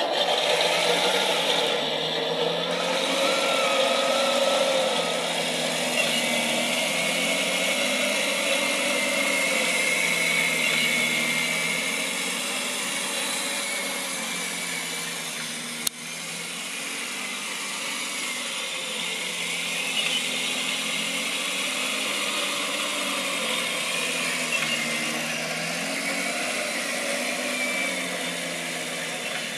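Model Tiger I tank's Clark TK24S sound unit playing a simulated tank engine through its onboard speaker while the RC tank drives, the engine note slowly rising and falling with the throttle, over the whine of the electric drive. A single sharp click about halfway through.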